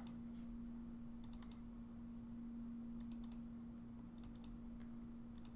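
Computer mouse double-clicks, about four pairs of quick sharp clicks spaced a second or so apart, as folders are opened one after another. A steady low electrical hum runs underneath.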